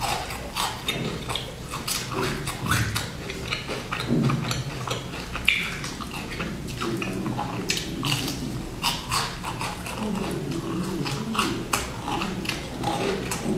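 A person chewing a crisp bear-shaped biscuit close to the microphone: many quick, uneven crunches and wet mouth sounds.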